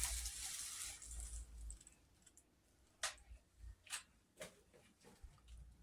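Faint knife clicks on a cutting board as a hot pepper is cut: four or five separate sharp taps, after a short hiss at the start.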